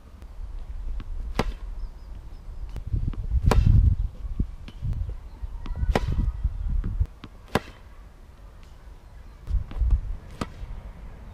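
Tennis racket striking balls: five sharp hits about two seconds apart, over a low rumble that comes and goes.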